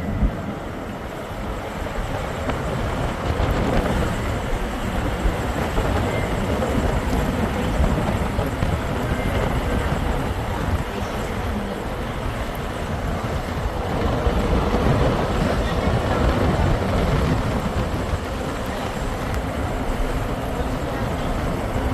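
Steady rumbling ride noise heard from inside a moving public-transport vehicle, rising a little about three seconds in and again around the middle.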